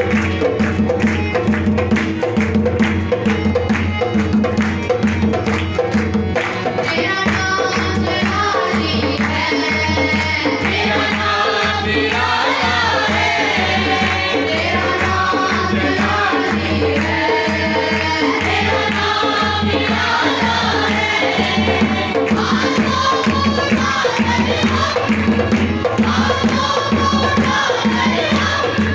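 Masihi geet (Urdu Christian worship song) performed live: a steady percussion beat with instrumental accompaniment, and about a quarter of the way in several voices, women and a boy, come in singing together into microphones.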